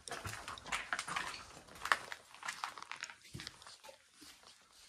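Footsteps crunching and crackling over rubble and debris on the floor, an irregular run of crunches with a sharp one about two seconds in, then fewer and quieter steps.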